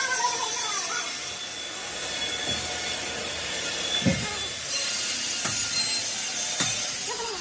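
Machine-shop noise: a steady hiss and whine of metalworking machinery, with a few short squeals near the start and several dull knocks, the loudest about four seconds in.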